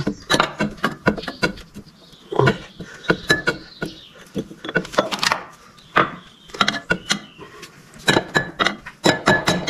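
Hammer blows on the steel of a pickup's rear chassis, each with a short metallic ring. The strikes are irregular at first, then come in a quick, even run of about four a second near the end.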